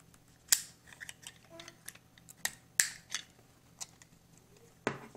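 Small metal clicks and scrapes of a Beretta Jetfire 950 pistol's slide and recoil springs being worked back onto the frame during reassembly. About seven sharp clicks come at uneven intervals, the loudest a little under 3 s in.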